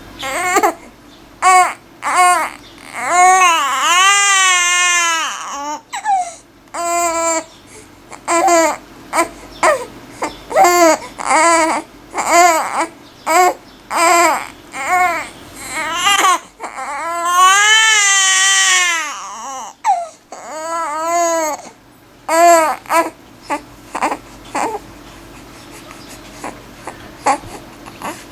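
Infant crying in a run of short, loud, repeated cries, broken by two long wails that rise and fall in pitch, one a few seconds in and one past the middle. The crying thins out to a few faint short sounds near the end.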